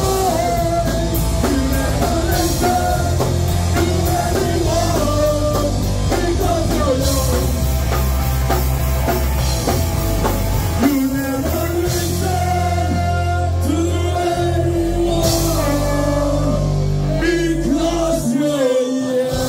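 Live punk rock band playing: electric guitars, bass and drum kit, with a singer's voice over them.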